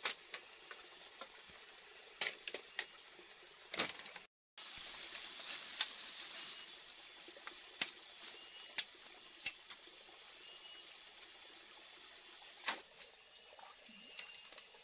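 Machete chopping at bamboo and undergrowth: about a dozen sharp cuts at irregular intervals, the loudest near the middle and near the end. A steady hiss of forest background runs beneath them, with a brief dropout just before the middle.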